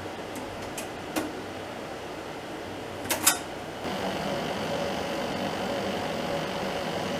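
A few light clicks and two sharp knocks close together, then a steady hum with a faint whine comes up about four seconds in and holds.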